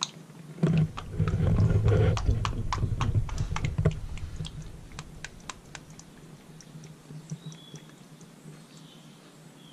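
Engine oil glugging out of a plastic oil jug into a funnel, loudest for the first few seconds, then thinning to scattered clicks and drips.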